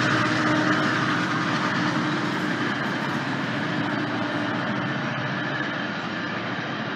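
GO Transit commuter train running past, a steady rumble that slowly fades.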